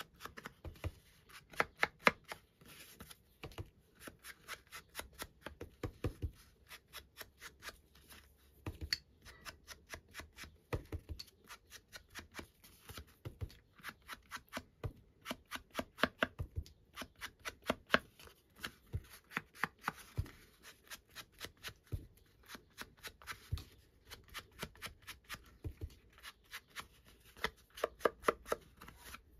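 Quick, light taps of distress ink being dabbed onto paper and its edges, several a second in runs with short pauses.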